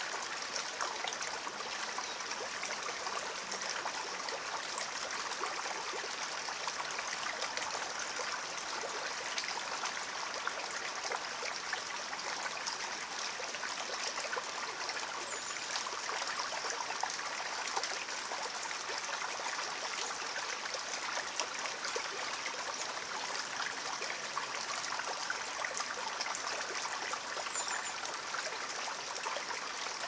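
A small rocky stream flowing steadily, water splashing and trickling over a low cascade of stones into a pool.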